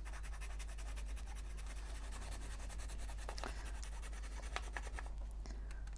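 A watercolour pencil rubbed against medium sandpaper, a steady, fast dry scratching, with a few sharper ticks in the middle.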